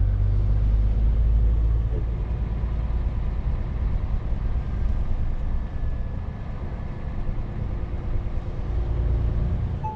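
Scania truck's diesel engine and tyres on a wet road, heard inside the cab: a steady low rumble that eases a little after the first couple of seconds and builds again near the end.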